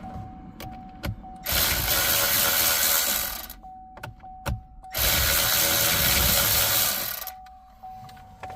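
Cordless power driver running a fastener out of the steering-column trim in two bursts of about two seconds each.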